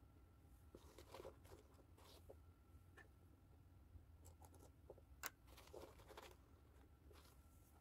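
Faint handling sounds: light scratchy rustles and small clicks of hands working a fabric purse and pressing small fruit charms onto it while gluing, with one sharper click about five seconds in.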